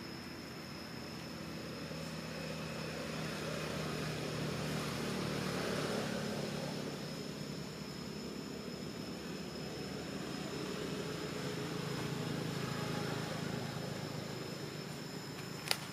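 A steady low mechanical hum that swells and fades slowly, with a faint thin high whine held throughout. A single sharp click near the end.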